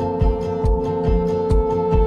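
Background music: sustained notes held over a steady beat of about three low thumps a second.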